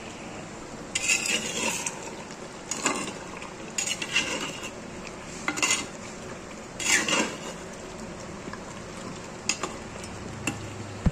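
Steel spatula stirring mutton curry in a clay pot, scraping against the earthenware in about five short bursts, then a few light knocks near the end, over a steady background hiss.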